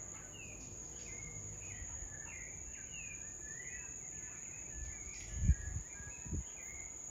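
Birds chirping in short repeated calls over a steady high-pitched insect drone. Two low thumps come about five and a half and six and a half seconds in, the first the loudest sound here.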